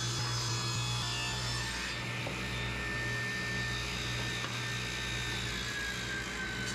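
Table saw running steadily with a constant motor hum, crosscutting a glued-up striped hardwood panel into strips for an end-grain cutting board; the cutting noise eases about two seconds in as the blade clears the wood.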